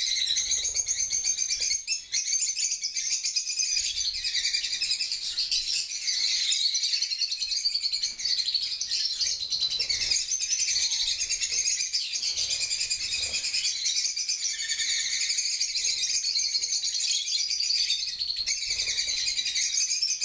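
Parrots chattering continuously, many quick high-pitched chirps and tweets overlapping without a break.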